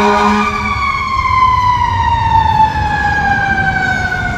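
Fire engine's horn, a steady chord that stops just under a second in, then its siren winding down in one long, slowly falling tone over the low rumble of the engine.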